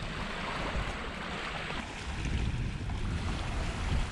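Wind on the microphone with a steady hiss of small waves washing on a pebble beach; about halfway through the low wind buffeting grows stronger.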